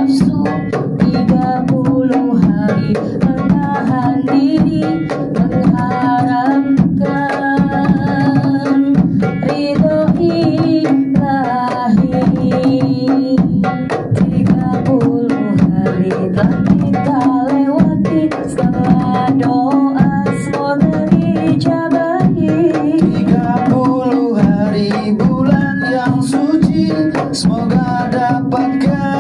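Indonesian Eid song sung by a group of voices, accompanied by banjari frame-drum percussion beating steadily throughout.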